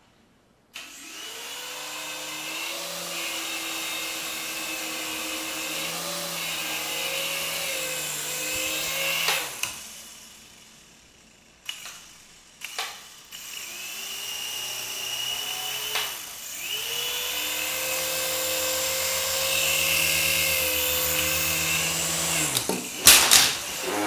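Syma S107G micro RC helicopter's motors and coaxial rotors whining in two runs. It spins up about a second in and cuts out with a couple of knocks near the ten-second mark. It starts again around thirteen seconds, runs steadily, then stops near the end amid a few sharp knocks.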